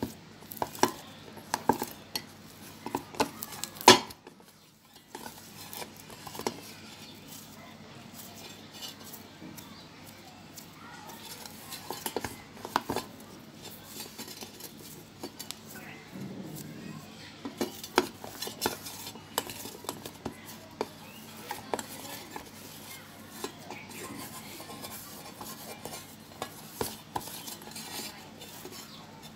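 Homemade flour-and-salt clay dough being kneaded by hand in a stainless steel bowl: irregular clicks and knocks of hands and dough against the metal bowl, the loudest about four seconds in.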